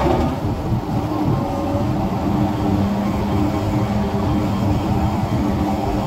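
Heavy diesel engine of piling machinery running steadily: a constant low rumble with several steady tones, heard from inside an operator's cab.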